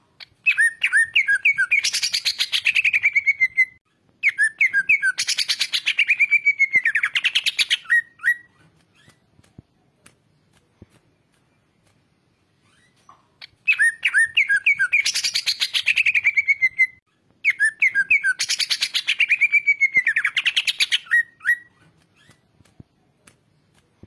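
Greater green leafbird (cucak ijo) singing loud, fast song phrases: four of them in two close pairs with a pause of about five seconds between the pairs. Each phrase opens with a few sharp notes and runs into a rapid rattling trill that sweeps down in pitch.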